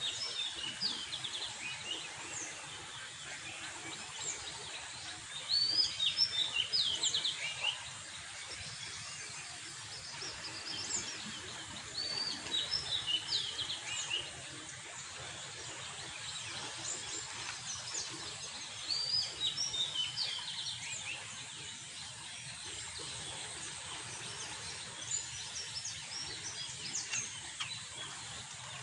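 Small birds chirping in clusters of short, high calls every few seconds, over a steady outdoor background hiss.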